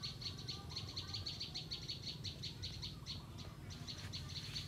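High-pitched rapid chirping, about nine chirps a second, with a short break about three and a half seconds in.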